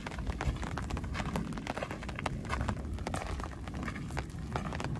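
Footsteps crunching on a gravel trail, with many short irregular crunches and clicks, over a steady low rumble.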